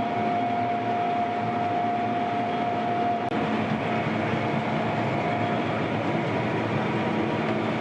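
Combine harvester running steadily while cutting wheat: an even mechanical drone with a steady high hum that fades about halfway through.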